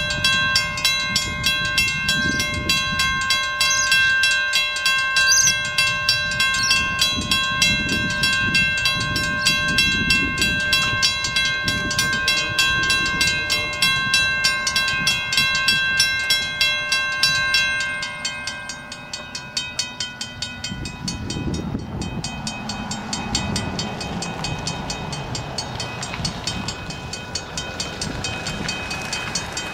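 Level crossing's mechanical warning bell ringing rapidly and evenly as the crossing activates and the boom gates lower. Its loud ring drops away after about eighteen seconds, leaving fainter rapid ringing over a low rumble.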